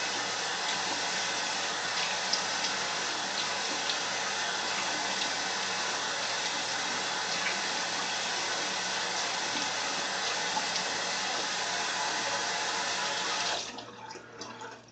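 Bathroom sink tap running steadily with cold water, with a few faint splashes as a freshly shaved face is rinsed. The water cuts off suddenly about a second before the end.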